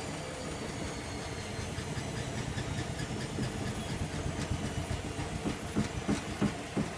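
Bosch Logixx 8 WAS28466 washing machine running with a load of towels: a steady low hum with a thin high whine that slowly falls in pitch, then a few soft, irregular thuds near the end.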